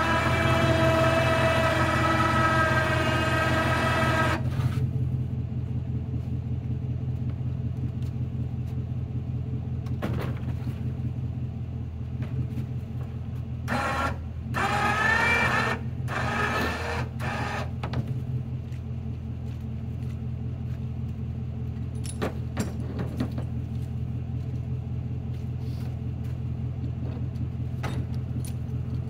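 Pickup truck engine idling steadily. Over it, the bumper crane's winch motor whines for the first four seconds or so while it hoists a pine log, and again briefly about halfway through. Light metallic clicks and clinks of the hook and rigging come in the later part.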